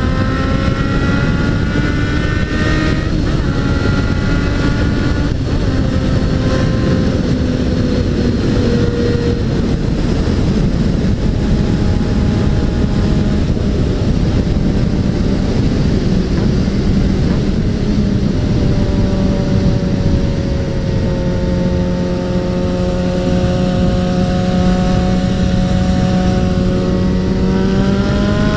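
Suzuki Bandit 650N's inline-four engine running at a steady cruise under heavy wind rush on the bike-mounted microphone. The engine note dips lower about a third of the way in, then climbs near the end as the throttle opens.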